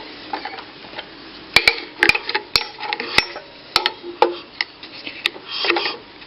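Hand tools working the magneto bolts on a lawn mower engine: irregular sharp metallic clicks and clinks, with a short louder rattle near the end.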